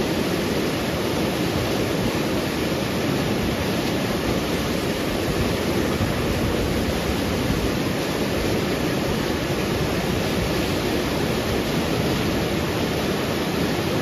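River water rushing over boulders through shallow rapids: a steady, even sound of white water.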